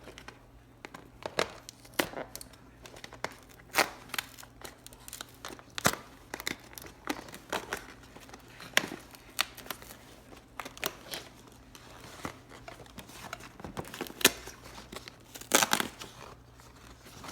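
Toy packaging being punched open and torn by hand: irregular crinkling, crackling and ripping with sharp clicks scattered throughout.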